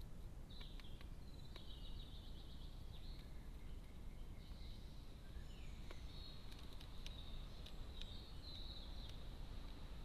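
High chirps and trills of small songbirds, with scattered sharp ticks from a blackbird pecking seed in a feeder tray, over a steady low background noise.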